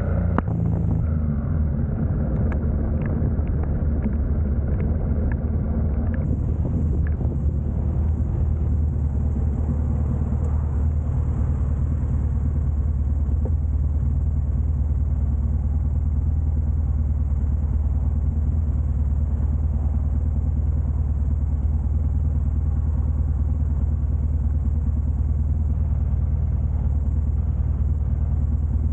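Motorcycle engine idling at a standstill, a low steady rumble.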